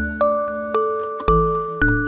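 Background music: a gentle tune of chiming, bell-like struck notes, about two a second, over low sustained bass notes.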